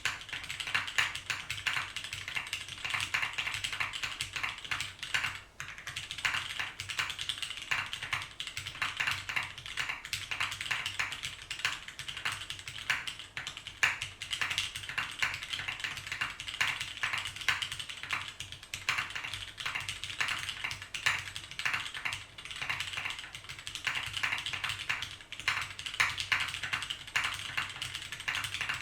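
Continuous typing on a Sessanta HHKB-layout mechanical keyboard with vintage Cherry MX Brown switches on a carbon-fibre plate: a fast, steady stream of key clacks, with a brief pause about five and a half seconds in.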